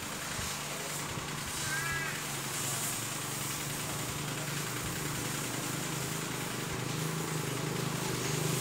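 Steady low motor hum, with a bird's short call about two seconds in.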